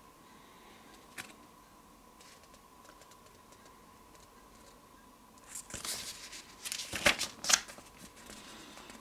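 Paper pages of an instruction booklet being turned, a short burst of rustling and crackling paper from about six seconds in.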